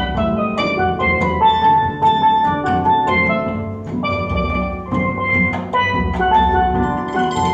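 Steel drum band with hammered dulcimer playing: a quick run of struck, ringing pan and dulcimer notes over a low drum beat.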